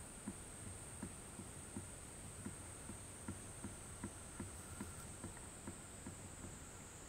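Steady high-pitched insect chorus from the forest, with soft low ticks repeating evenly about three times a second.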